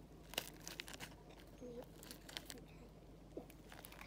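A small stone pressing and tapping on a woven plastic sack, crushing ticks: a scattering of faint, sharp clicks and crackles.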